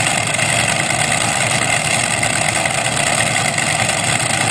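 Pulling tractor's engine idling steadily while hitched to the weight-transfer sled before a pull.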